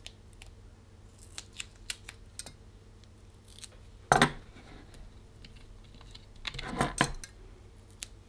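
Scissors cutting foam pads to size, with scattered light clicks and handling noises. The loudest clicks come about four seconds in and again near the end.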